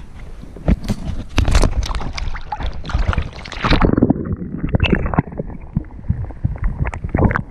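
Water splashing and sloshing around the camera as it goes into the sea, with knocks against the housing. About four seconds in the sound turns muffled, with underwater gurgling and knocking.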